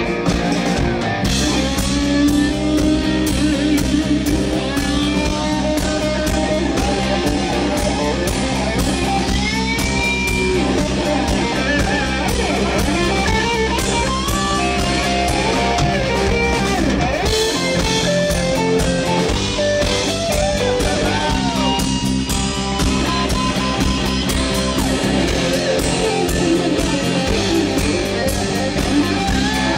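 Live rock band playing: electric guitars with bending lead lines over bass guitar and a drum kit, amplified and loud.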